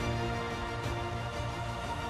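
Theme music for a TV programme's opening titles: sustained chords over a steady low bass, with a short percussive hit a little under a second in.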